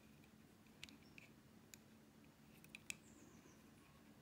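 Faint, scattered light clicks and taps of a small tool stirring glitter into stiff builder gel, over near-silent room tone.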